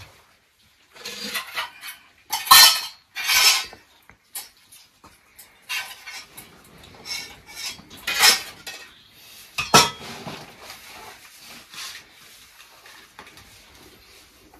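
Metal dishes and utensils clattering and scraping in irregular bursts, with a few louder clashes.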